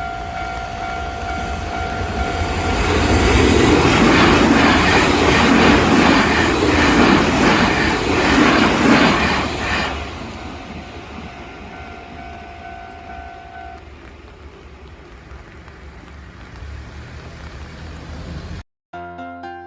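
A Japanese level-crossing warning bell rings with a steady, repeating electronic tone while a Nankai Main Line train passes, its wheels clattering over the rail joints. The train is loudest for several seconds in the middle. The bell stops about 14 s in. After a brief cut to silence near the end, piano music begins.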